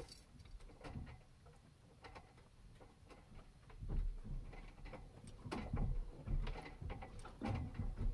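A boat cabin rocking in passing wakes: scattered light ticks and clinks of hanging metal hardware and gear, with a few soft knocks and creaks from the hull, the loudest of them about four, six and seven and a half seconds in.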